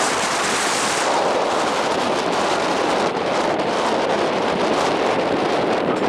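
Steady, loud rushing noise of wind blowing across the microphone.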